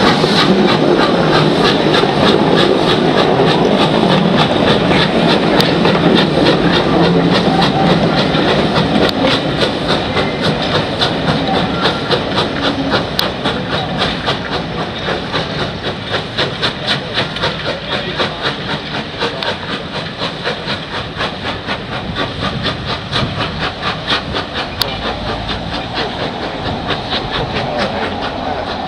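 Taff Vale Railway 0-6-2 tank locomotive No. 85 pulling away with a train of coaches: steam hiss and then regular exhaust chuffs that quicken as it gathers speed, slowly fading as it draws away.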